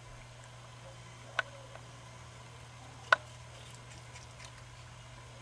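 Ring-tailed lemur eating a piece of fruit: two sharp clicks, about a second and a half in and a louder one about three seconds in, with a few faint ticks between, over a steady low hum.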